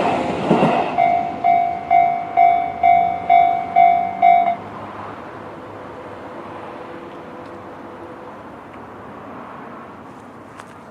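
A loud rushing vehicle pass that dies away about a second in, then a pitched ding repeating about twice a second, eight times, which stops suddenly, leaving a faint fading rumble.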